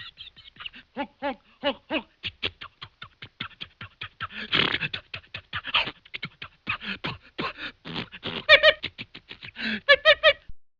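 Vintage cartoon sound effect: a rapid string of short, clipped animal-like yaps and squeaks, some with a clear pitch, with a tight cluster of higher pitched squeaks near the end.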